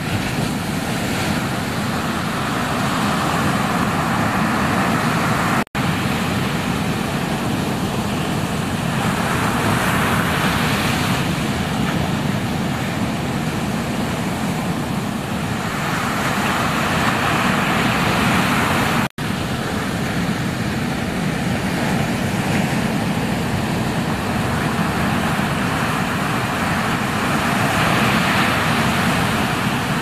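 Steady roar of ocean surf, swelling as waves break. The sound cuts out for an instant twice.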